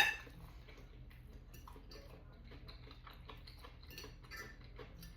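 A fork or other cutlery clinks sharply once on a plate at the start, followed by faint, scattered small clicks and taps of cutlery against dishes.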